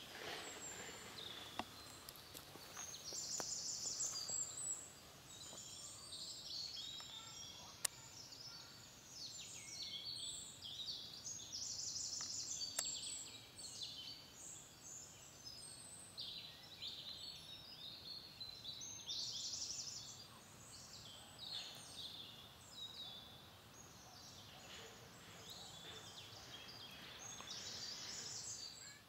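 Small woodland birds chirping and trilling, faint and overlapping, in high rapid notes. A single sharp click sounds about eight seconds in.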